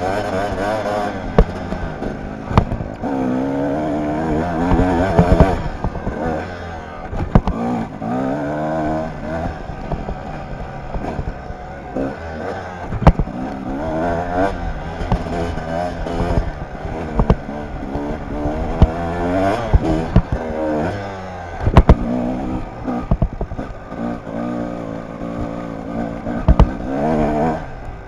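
A Kawasaki dirt bike's engine revving up and down again and again as it is ridden over a dirt trail, with frequent sharp knocks and rattles from the bike.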